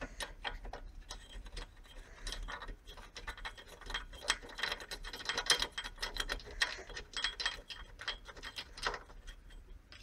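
Rapid, irregular metallic clicking as the 10 mm center bolt holding the carburetor float bowl is undone; the clicking is thickest in the middle and stops shortly before the end.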